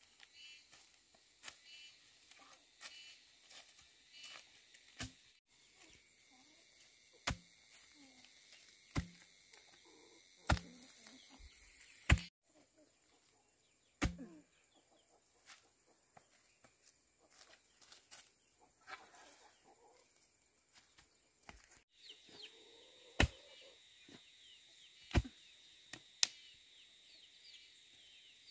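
Chickens clucking over a steady insect buzz, broken by sharp knocks roughly every second and a half through the middle of the stretch and twice more near the end.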